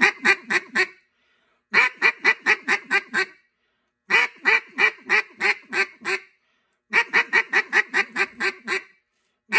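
Hand-held duck call blown in greeter calls: about four runs of quacks, six to ten quacks in each at roughly five a second, each run starting loud and stepping down, with short pauses between runs.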